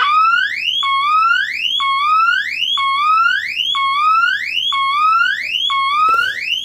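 Teledyne WaterPik Sonic Siren D-2 smoke alarm (circa 1977) sounding its loud electronic siren under test. The siren sweeps up in pitch, drops back, and repeats a little faster than once a second, about seven times.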